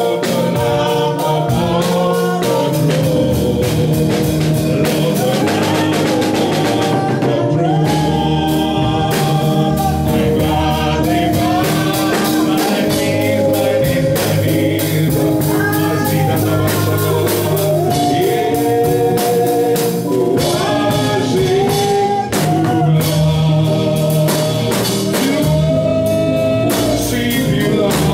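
Gospel praise music: singing over organ, bass and a drum beat.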